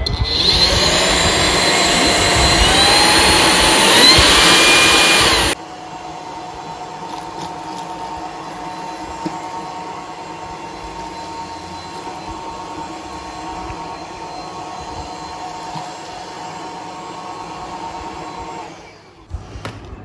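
Corvan K18 cordless stick vacuum with its motorised spin-mop head switched on: a loud motor whine that steps up in pitch twice over the first few seconds. It then drops suddenly to a quieter steady hum as it runs over the floor, and stops about a second before the end.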